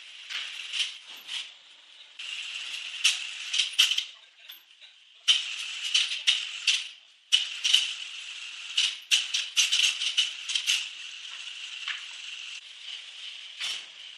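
A woodworking tool cutting wood: a steady hiss that starts and stops in stretches of a few seconds, with many sharp clicks and rattles.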